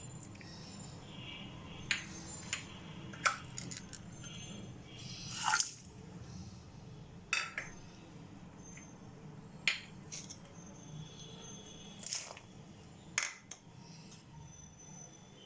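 Kitchen dishes and utensils clinking and knocking now and then, about eight separate strokes with a longer scrape about halfway through, over a low steady hum.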